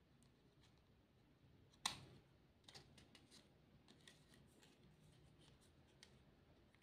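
Quiet clicks and rustles of sticker pieces being handled and pressed onto a paper plate by fingers, with one sharper click about two seconds in and a few softer ones after it.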